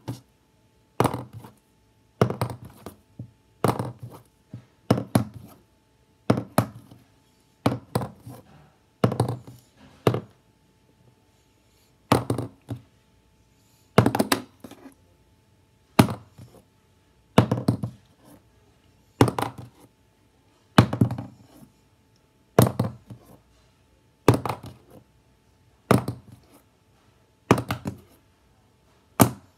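A plastic highlighter being flipped and landing again and again, about once every second and a half. Each landing is a thunk followed by a few quicker, fainter knocks.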